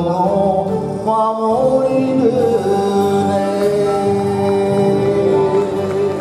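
A man singing into a handheld microphone over a recorded orchestral backing track, a short sung phrase and then one long held note from about two and a half seconds in.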